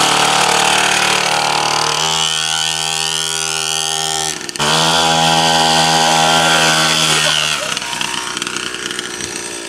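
Small two-stroke engine of a kids' petrol mini dirt bike, cold and running on choke, revving loudly as it pulls away. The revs drop briefly about four and a half seconds in, then the engine sound fades as the bike rides off.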